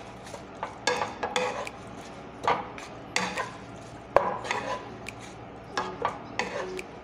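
Two spatulas tossing and scraping a pork salad with herbs around a white coated pan, with irregular clatters of utensil on pan and one sharp knock about four seconds in.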